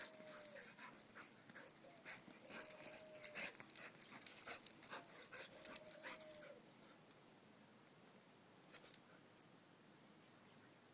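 Dog whining in three short rising-and-falling whines a few seconds apart while playing. Scratchy scuffling clicks come with them, ending about seven seconds in, with one more burst near the end.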